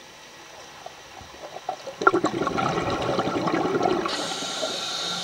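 Scuba diver's exhaled breath bubbling out of the regulator underwater, starting about two seconds in as a loud gurgling, crackling rush, with a higher hiss joining near the end.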